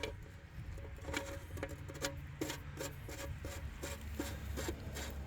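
Ratchet wrench tightening a refitted engine sump drain plug: a regular run of short rasping clicks, about three a second.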